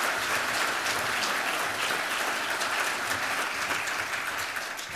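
Audience applauding, a roomful of people clapping steadily and beginning to die away near the end.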